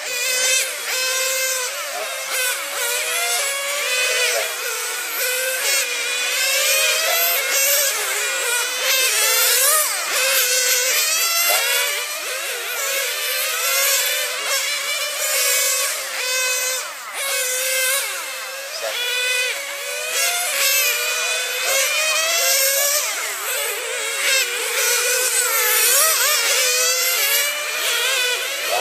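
Several radio-controlled nitro cars racing, their small glow engines buzzing at high pitch and revving up and down one after another as they lap the track.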